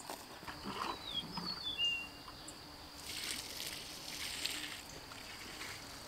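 Water from a garden hose splashing onto a compost pile, with a spell of louder hissing spray in the middle. A few short, high chirps sound about a second in.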